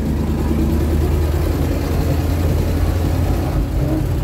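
GAZ-66 truck engine running steadily under way, a low drone heard from inside the cab.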